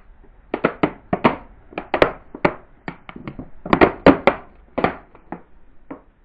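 Thin plastic Spider-Man masks cracking and snapping under a car tyre: a rapid series of sharp cracks, loudest about two and four seconds in, thinning out near the end.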